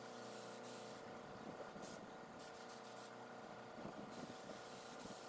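Gravity-feed spray gun hissing as it sprays primer, the air cutting off about a second in and starting again a little after four seconds, with one short burst between. A steady low hum runs underneath.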